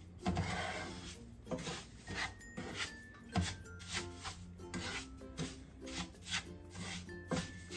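Wooden spatula stirring and scraping undissolved granulated sugar in oil around a pan, in repeated gritty strokes roughly two a second. The sugar is still grainy and has not yet begun to melt.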